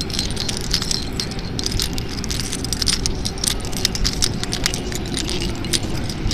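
Keys jangling and clinking in irregular short clicks as a person walks, over a steady low rumble.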